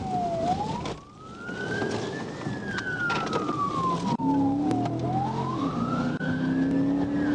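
Police car siren in a slow wail, its pitch sweeping up and falling back about every four and a half seconds. From about four seconds in, a low engine note runs underneath it.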